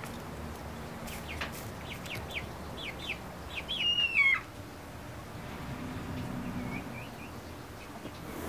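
Hens calling in a coop: a quick run of short high chirps, then a longer call that falls in pitch about four seconds in, followed by a few fainter calls.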